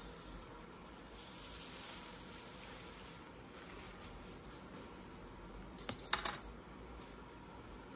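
A quick cluster of three or four sharp, light clicks or clinks about six seconds in, over a faint steady hiss.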